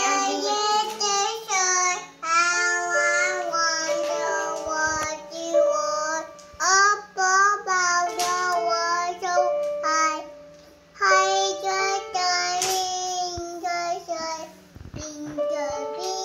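A toddler singing while pressing keys on an Alesis electronic keyboard: her voice slides up and down over steady held keyboard notes, with short breaks between phrases.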